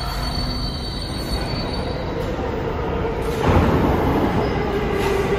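New York City subway train running on the rails in an underground station. A steady low rumble, with a thin high wheel squeal that dies away about two seconds in; then a steady hum builds and the train gets louder about three and a half seconds in.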